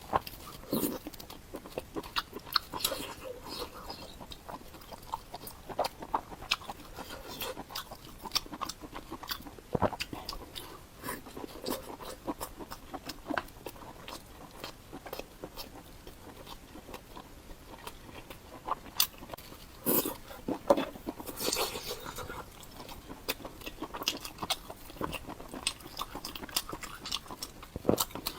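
Close-miked mouth sounds of someone eating a salmon head: chewing, wet smacks and sucks, with many sharp clicks scattered throughout and a busier, louder stretch a little past the middle.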